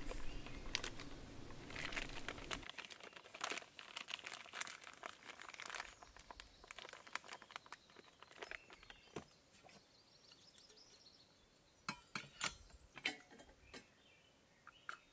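Faint crinkling of a bag being handled, a close, dense run of small crackles that thins out after about six seconds. A few light, sharp clicks and taps of metal camp coffee gear follow near the end, and a low rumble stops about three seconds in.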